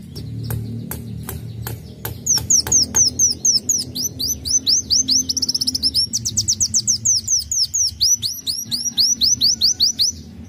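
Sunbird singing: a few sharp ticking calls, then from about two seconds in a long, fast, high trill of sweeping notes that speeds up in the middle and stops near the end.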